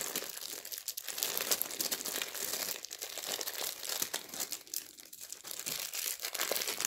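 Clear plastic wrap crinkling and tearing as it is peeled by hand off a small jar of souffle gel: a dense, irregular crackle.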